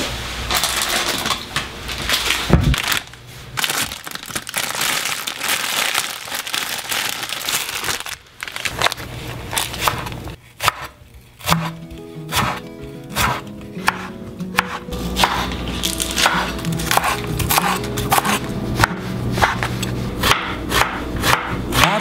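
Kitchen knife slicing leek and onion on a wooden cutting board: a run of quick, sharp knife strikes. Music comes in underneath about halfway through.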